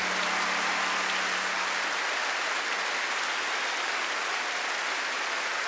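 Large audience applauding as a song ends, with the band's last held low note dying away about two seconds in.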